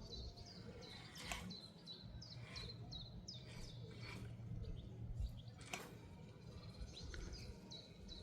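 Small bird chirping over and over in short, high notes, with two faint clicks.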